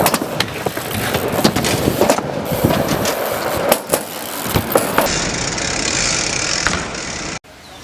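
BMX bike riding on hard ground: tyres rolling with many sharp clacks and knocks, which cuts off suddenly near the end.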